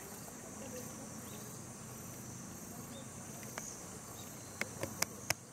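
Steady high-pitched insect chorus, with a few sharp clicks near the end.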